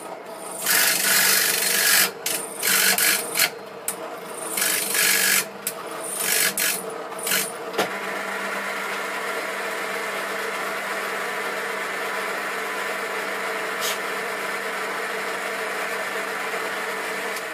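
Benchtop drill press running, its bit cutting into the workpiece in short repeated pecks with brief pauses for the first eight seconds or so, then the press running on steadily with nothing being cut.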